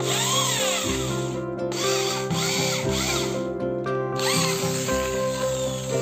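Handheld electric drill spinning a length of steel clothesline wire to straighten it, running in bursts with its whine rising and falling in pitch as the trigger is worked. Background music plays underneath.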